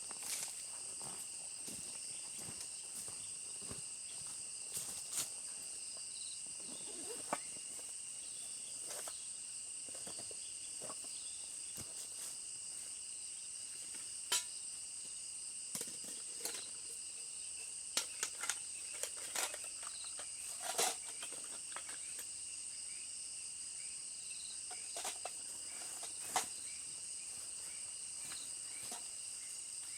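A steady, high-pitched insect chorus that hums in several unbroken bands, with scattered short clicks and light knocks.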